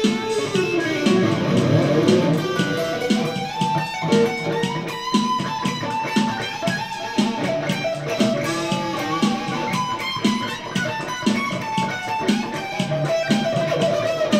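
Electric guitar played through an amplifier in a jam: picked notes and melodic runs, with some notes held and sustained.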